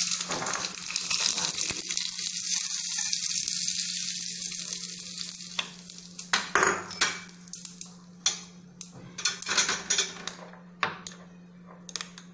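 Hot tempering of oil, cumin, mustard seeds, green chillies and curry leaves sizzling on the peanut chutney, the sizzle dying away over the first five or six seconds. Then a spoon clinks and scrapes against a glass bowl as the chutney is stirred.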